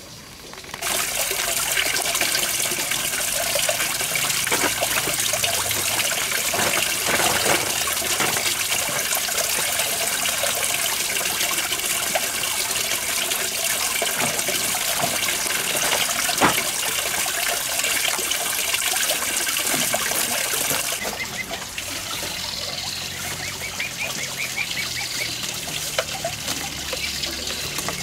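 Steady rush of water starting about a second in, easing off about three-quarters of the way through, after which bird calls come through.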